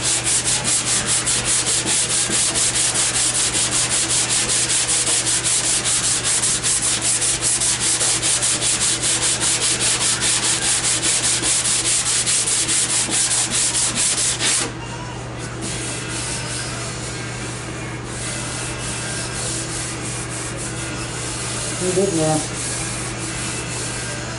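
Sandpaper on a hand sanding block scrubbed in quick back-and-forth strokes over the steel dog-leg panel of a 1974½ MGB, a steady, rhythmic scratching that stops about fifteen seconds in. After that only fainter rubbing remains, with a short pitched squeak a couple of seconds before the end.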